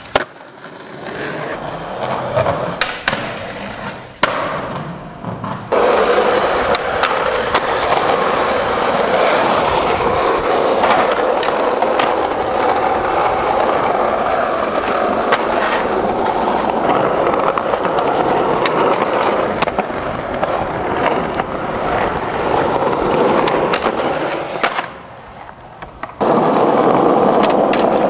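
Skateboard wheels rolling over rough asphalt, a steady rumble with many small clicks. It starts loud about six seconds in, drops away for a moment near the end, then resumes. A few sharp clacks of the board come in the first seconds.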